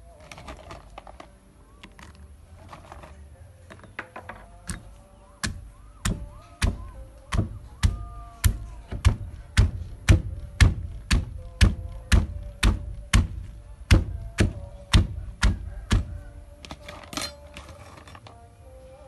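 Stone pestle pounding young tamarind pods in a stone mortar: steady heavy strokes about two a second, with lighter knocks at the start and a short clatter near the end.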